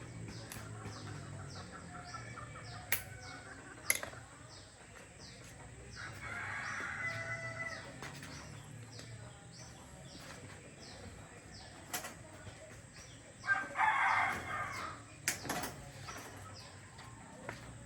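Chickens calling twice over a regular high chirping, with a few sharp knocks scattered through.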